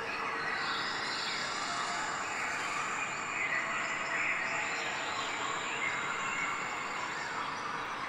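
Water splashing and sloshing out of a plastic tub as a baby elephant thrashes in it, spilling over the rim onto a concrete floor in a steady rush that swells briefly midway.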